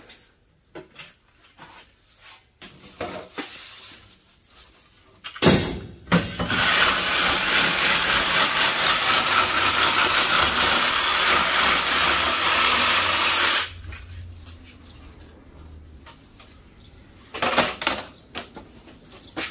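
A sharp clunk, then a power saw runs for about seven seconds, cutting through the aluminum-fin coil of a scrapped air-conditioner condenser, with a steady, rough, grinding noise. It stops abruptly, followed by a few scattered knocks of metal being handled.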